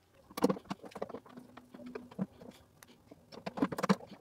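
Light, irregular clicks and taps of small metal parts: a spool-holder bracket and hex key handled against the back of a 3D printer while the holder is fitted with small screws. The taps grow busier near the end.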